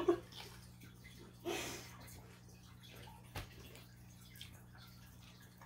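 Quiet room with a steady low electrical hum; a short breathy exhale comes about a second and a half in, and a single soft knock a little after three seconds.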